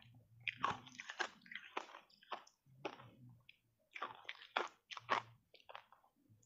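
Block ice coated in matcha powder being chewed close to the microphone: a quick, uneven run of crisp crunches, about three a second.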